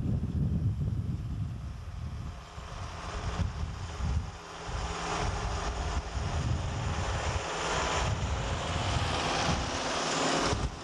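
International 785XL turbo diesel tractor engine running steadily under load while pulling a round baler through hay. From a few seconds in, a hiss of the baler working the hay builds over the engine's rumble.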